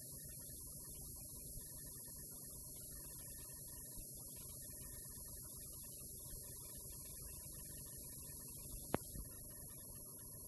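Faint, steady electrical mains hum with hiss and a thin high whine from the end of a videotape transfer, carrying no programme sound. A single sharp click comes about nine seconds in.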